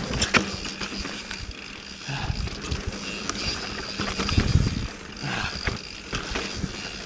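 Yeti SB 4.5 mountain bike rolling over rough dirt singletrack: tyre noise with scattered clicks and knocks from the bike, and low rumbles of wind on the microphone.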